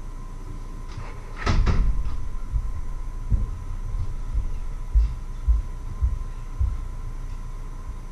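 A person moving about a kitchen at the sink and stove: two sharp knocks in quick succession about a second and a half in, then a string of dull low thumps. A faint steady hum runs underneath.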